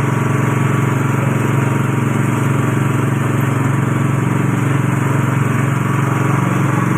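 Coconut milk press machine running steadily, its motor giving a constant low drone.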